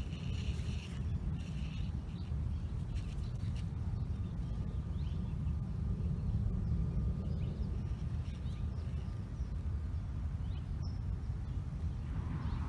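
Garden ambience: a steady low rumble with faint, scattered bird chirps.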